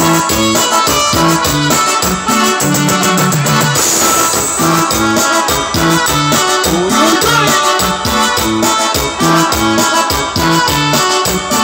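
Live Oaxacan chilena music played on an electronic keyboard through PA speakers: a steady rhythm with a bass line repeating note by note under a busy melody.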